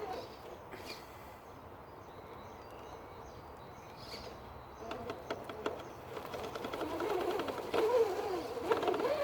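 RC rock crawler's electric motor and geared drivetrain whining, the pitch wobbling up and down as the throttle is worked, with scattered clicks. Fairly quiet for the first few seconds, busier and louder from about five seconds in.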